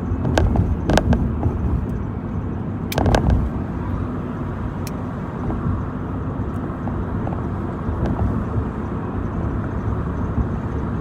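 Steady road and engine rumble inside a moving car's cabin, with a few sharp knocks or clicks in the first few seconds.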